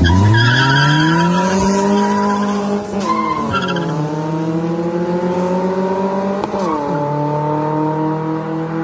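Drag cars launching from a standing start at full throttle. One engine's note climbs hard, drops sharply at gear changes about three seconds and about seven seconds in, and climbs again each time as the cars pull away. Tyres squeal briefly at the launch.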